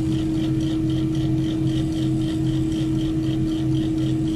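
Large mobile crane's diesel engine running steadily during the lift: a continuous hum with a pulsing beat about three times a second.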